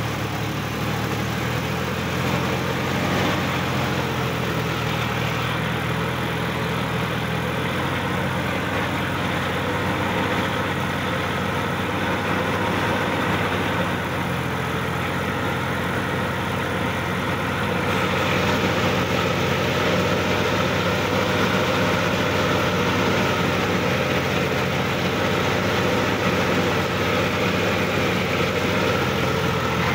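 Sonalika DI-50 RX tractor's diesel engine running steadily as the tractor drives through a flooded, muddy paddy field. It gets a little louder about two-thirds of the way through.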